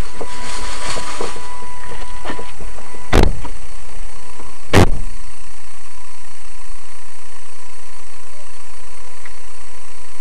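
Dashcam audio inside a stationary car: a steady hum, broken by two sharp thumps about three and five seconds in.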